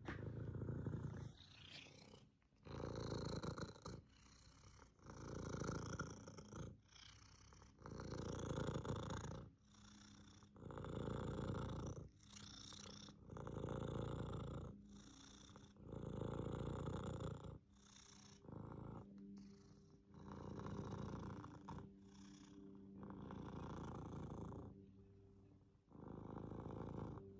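Domestic cat purring with a wheezy rasp, the purr swelling and fading with each breath about every two and a half seconds.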